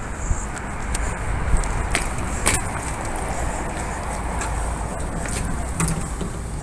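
Steady background noise with a strong low rumble, broken by several sharp clicks and knocks; the loudest knock comes about two and a half seconds in.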